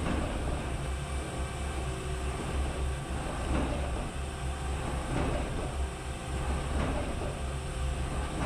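Mazak Integrex mill-turn machine shape-broaching the square hardy hole in an anvil: a steady low machine hum with a faint cutting stroke repeating about every one and a half seconds.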